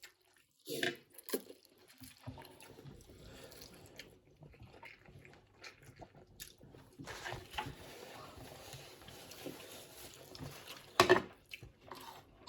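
Mouth sounds of eating noodles: quiet chewing with a few small clicks, and one louder short mouth sound about eleven seconds in.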